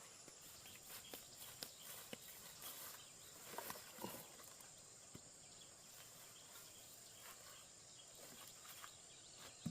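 Near silence: faint forest ambience with a steady high-pitched insect drone and scattered light rustles and clicks.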